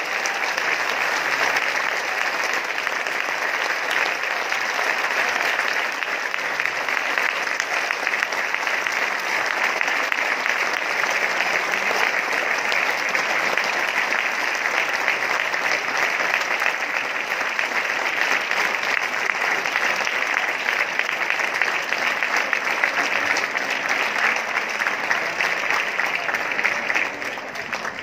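A large theatre audience clapping together in a long standing ovation: dense, steady applause that dies down about a second before the end.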